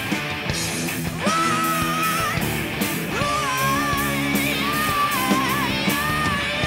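Rock band playing live: electric guitars, bass guitar and drums, with a lead vocal singing long held lines over them from about a second in.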